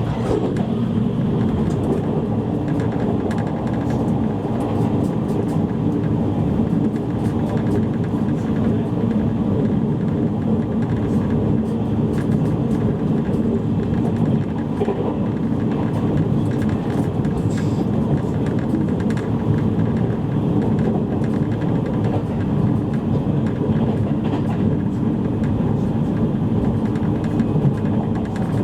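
Cabin noise inside a JR East E653 series electric train running at speed: a steady rumble of wheels on rails, even in level throughout, with faint scattered ticks.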